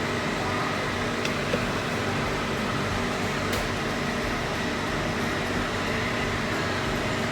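Steady hum of a running fan-type appliance, with one faint click about a second and a half in.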